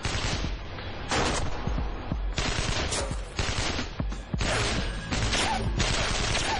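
Gunfire in a shootout, dubbed for television: repeated volleys of rapid shots, one burst after another, over a steady low rumble.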